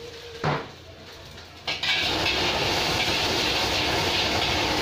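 Nasi goreng frying in a hot wok over a gas burner: a sharp clatter about half a second in, then a loud steady sizzle that starts suddenly just before two seconds in.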